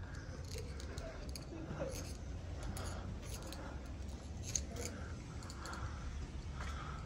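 Scattered small clicks and ticks, one sharper than the rest about four and a half seconds in, over a low steady hum, with faint distant voices.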